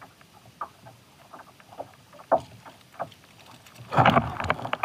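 Water lapping and slapping against a kayak hull in irregular light knocks, with a louder splash about four seconds in.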